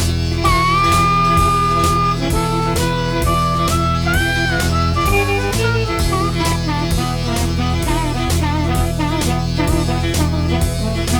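Background blues-rock music: an instrumental break in which a lead instrument plays held, bending notes over a steady driving beat.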